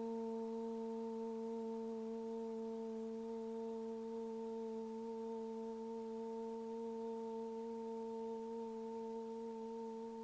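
A long, steady held tone on one pitch with a few soft overtones, slowly fading.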